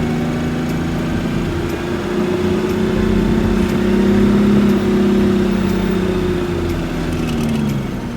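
Vehicle engine running steadily, its note dropping near the end as the revs fall.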